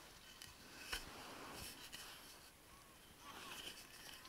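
Faint scraping strokes of a knife whittling a wooden spoon, one stroke a little louder about a second in.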